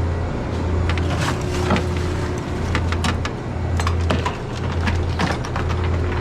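Ice being broken and pulled off an iced-up freezer evaporator: irregular cracks and clacks over a steady low hum.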